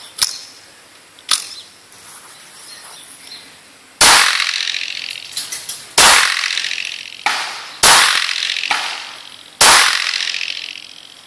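Pistol shots: four loud shots fired about two seconds apart, each ringing out and dying away over a second or more. Before them come a few fainter sharp cracks.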